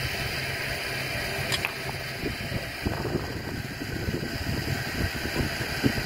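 A vehicle engine idling steadily, with a single click about a second and a half in. Rough, uneven rumbling on the microphone takes over about halfway through.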